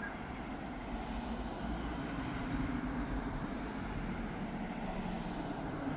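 Jet engines of a Ryanair Boeing 737 on approach: a steady rumble with a thin high whine for a few seconds.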